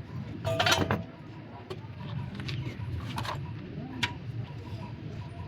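Metal clinks and knocks of tools being handled, a cluster about half a second in and a few single ones later, over a steady low hum.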